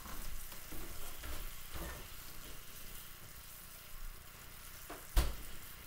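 Butter, brown sugar and banana sauce sizzling in a small frying pan on a gas burner, with a single sharp knock near the end.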